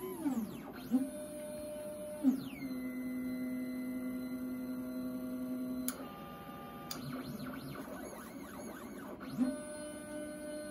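Stepper motors of a LowRider 3 CNC plasma table driving the torch head through a dry-run cycle with the torch disabled. Their whine glides up and down in pitch and holds steady in between as the axes speed up, slow and stop, with sharp clicks about six and seven seconds in.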